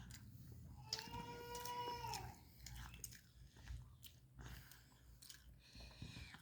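A cat meows once, a long, steady call of about a second and a half starting about a second in, over faint chewing.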